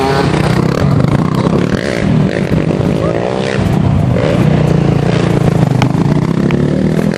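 Motocross bike engines revving loudly as a rider takes off from a jump ramp and flies through the air, with another bike's engine winding up, rising in pitch, near the end.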